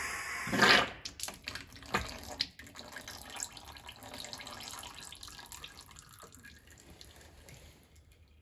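Hydraulic oil rushing out of a hydraulic cylinder as its piston rod is drawn out by hand, loud for the first second in two spurts, then trickling and dripping into a catch container and fading away.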